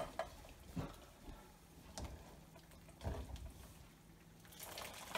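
Mostly quiet: a click at the start, a few faint knocks, then near the end tongs lifting blanched gai lan (Chinese broccoli) out of the hot water in a wok, the water sloshing and dripping.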